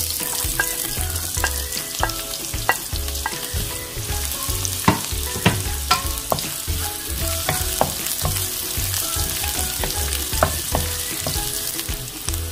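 Diced onion and julienned ginger sizzling in hot oil in a nonstick pan, with a steady hiss, while a wooden spatula stirs them and clicks and scrapes against the pan many times.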